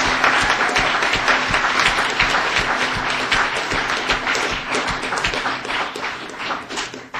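A crowd applauding with many hands clapping together; the applause fades out near the end.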